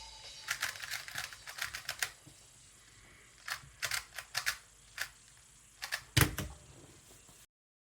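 GAN 251 M Leap 2x2 magnetic speedcube being turned in quick solving moves, making bursts of sharp plastic clicks in several clusters, with a louder knock about six seconds in.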